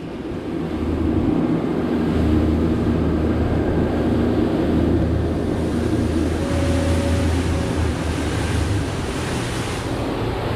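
Three Suzuki 300 outboard motors running a boat at speed, with water rushing past the hull and wind buffeting the microphone. It gets louder over the first couple of seconds, then runs steadily.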